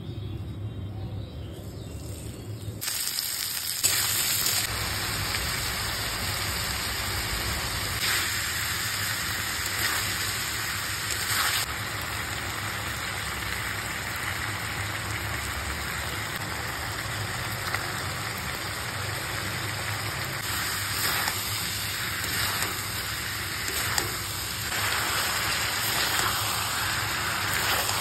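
Chicken pieces with onion frying in hot desi ghee in a pan: a loud, steady sizzle that starts suddenly about three seconds in, with a few brief louder surges.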